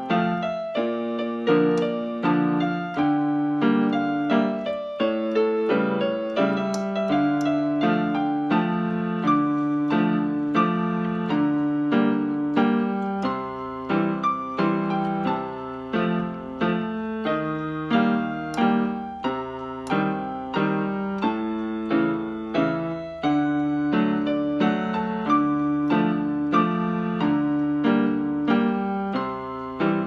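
Yamaha PSR-175 portable keyboard on its piano voice, played with both hands: an even, steady melody over held chords. A few faint clicks come from long fingernails striking the keys.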